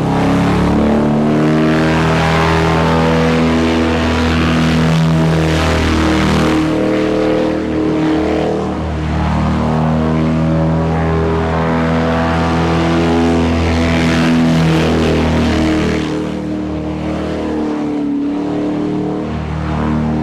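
Airboat engine and propeller running steadily under power, the pitch drifting slightly up and down and easing off a little a couple of times.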